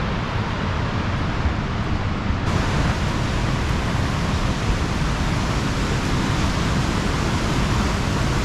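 Steady roar of a waterfall running high, a dense rushing noise. About two and a half seconds in it suddenly turns brighter and hissier.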